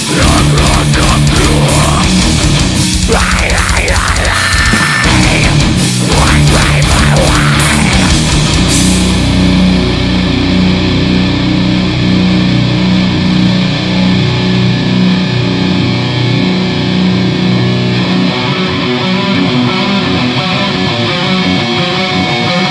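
Heavy rock band music with electric guitars. The bright cymbal crashes drop away about nine seconds in, leaving sustained guitar and bass.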